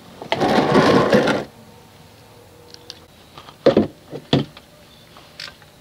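Plastic oil drain pan sliding and scraping across concrete for about a second, followed by a few short knocks and clicks as a gloved hand works at the car's oil pan.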